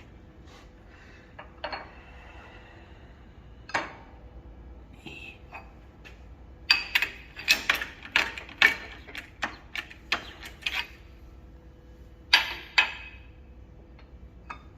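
Metal clinking and clanking of steel tools or parts being knocked together and handled: a few single clicks, then a quick irregular run of about a dozen sharp clanks, then two more.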